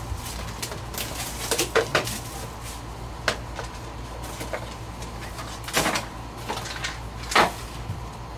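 Plastic shrink wrap crinkling and tearing off a trading-card hobby box, then the cardboard lid lifting and cards being handled. There are a handful of sharp crackles and snaps, the loudest near the end.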